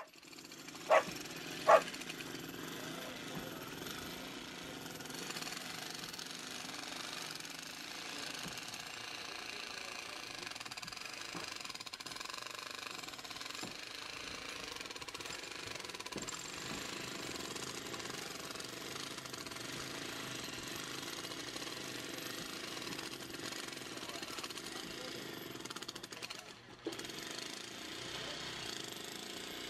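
A steady noisy din of background sound, with two short loud sharp sounds about one and two seconds in, and a brief drop in level with a click near the end.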